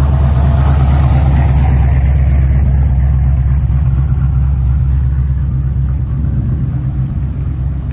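A car engine running with a deep, steady low rumble, its higher exhaust hiss easing off somewhat after the middle.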